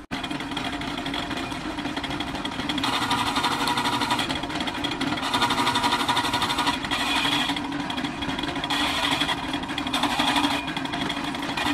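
Powered roller-type cable stripping machine running with a steady hum, a harsher, higher rasp coming and going in stretches of a second or two as insulated cable is pushed through its rollers.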